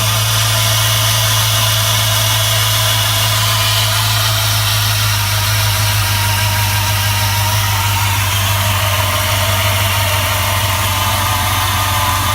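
A 2004 4.7 L HO V8 idling steadily, running not yet warm, with a tap that seems to come from the bottom rear of the engine. The owner asks whether it is engine knock; the tap goes away once the engine reaches operating temperature.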